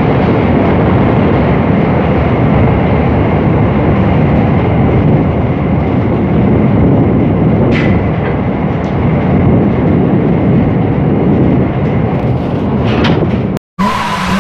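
Train running along the track, heard from on board: a loud, steady rumble with a faint high whine over it. It cuts off abruptly near the end, where a short sliding electronic sound effect begins.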